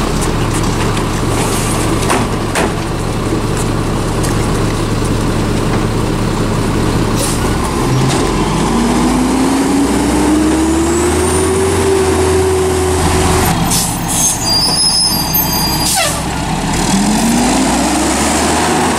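Mack MR garbage truck's diesel engine idling with a few knocks, then pulling away under load, its pitch rising over several seconds, dropping off about two-thirds of the way through, and rising again near the end.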